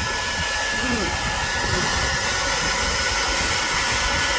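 Hair dryer running steadily, blowing hot air onto a computer's CPU to heat it: a constant rush of air with a thin high whine.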